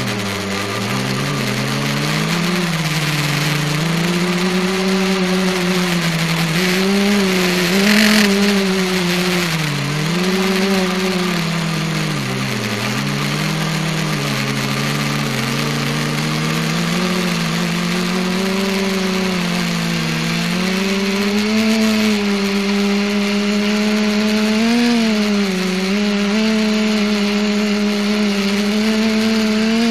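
Small R/C multicopter's motors and propellers buzzing, heard from its onboard camera, the pitch constantly rising and falling as the throttle changes in flight. A brief hiss about eight seconds in.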